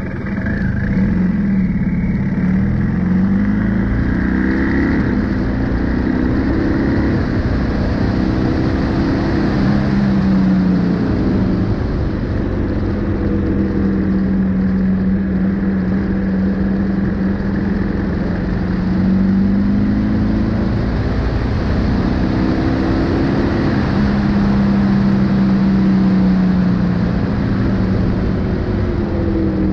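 BMW R1250GS Adventure's boxer-twin engine under way, its note rising in steps through the gears in the first few seconds, holding steady at cruise, then climbing again and easing off near the end. Wind rushes over the bike throughout.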